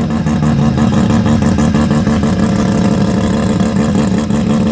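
Car engine running loudly at a steady idle, its exhaust pulsing rapidly at an even pitch.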